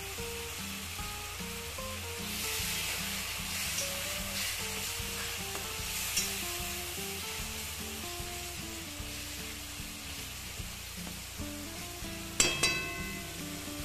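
Food sizzling and frying in oil in a kadhai while it is stirred. Near the end come two sharp clanks in quick succession that ring briefly.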